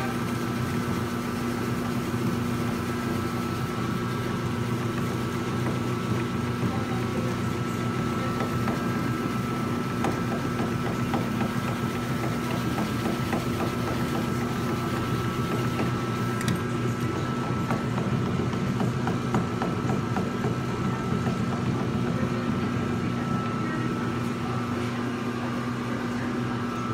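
Electrofreeze batch freezer running while discharging Italian ice, its motor and dasher turning to push the frozen batch out through the door chute. A steady hum with a thin whine above it.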